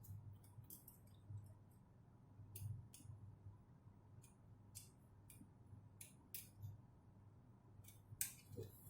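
Faint, scattered light clicks of a small screw or fitting being twisted with a small hand tool, over a faint low hum.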